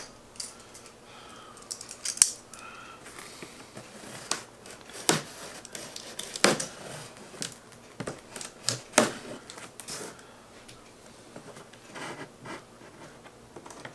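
Packing tape on a cardboard box being cut and pulled open: irregular sharp clicks, snips and scratches, with a few louder snaps.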